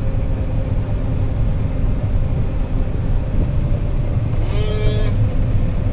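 Combine harvester running steadily during soybean harvest, a constant low rumble heard from inside the cab. About four and a half seconds in, a brief voice-like hum.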